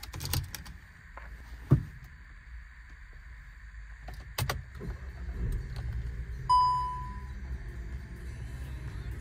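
Handling sounds inside a car: a few sharp clicks and one dull thump, then a single bell-like chime about six and a half seconds in, over a low engine rumble.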